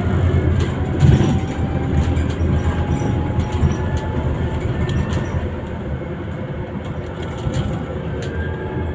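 Interior ride noise of a Scania Citywide CNG city bus under way: a steady low rumble of the gas engine and tyres, with faint whining tones that slowly drift in pitch and scattered light clicks and rattles.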